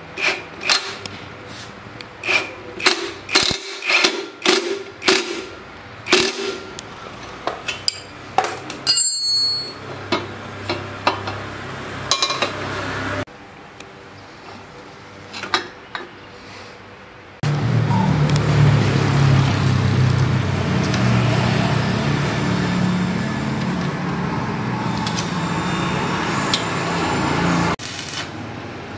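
Sharp metal clicks and clinks of a combination wrench working the bolts on a drive-shaft universal joint, about a dozen strikes in the first half. After a short quieter spell comes a long steady crackling hiss with a low hum, from electric arc welding on a steel frame.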